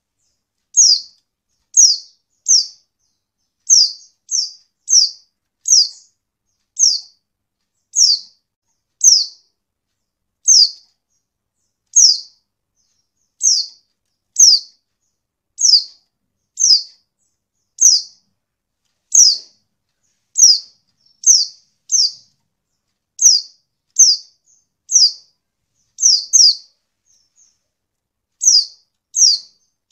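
White-eye (pleci) calling: short, high notes that each slide down in pitch, repeated about once a second and sometimes in quick pairs. Offered by the uploader as a female's call, used as a lure to prompt male white-eyes to sing.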